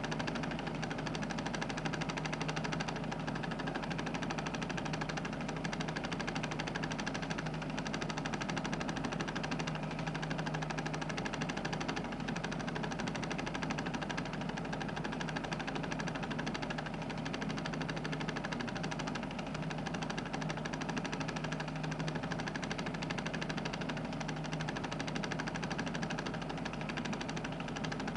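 Film projector running steadily: a continuous mechanical whirr with a low hum, unchanging throughout.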